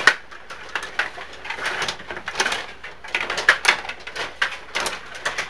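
Table hockey in play: a rapid, irregular clatter of sharp clicks and knocks as the puck strikes the metal players and boards and the rods are pushed and spun.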